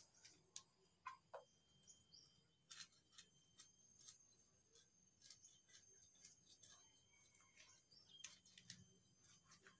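Near silence, with faint scattered clicks and scrapes of a knife cutting fish on a plastic chopping board, and a few faint high chirps in the background.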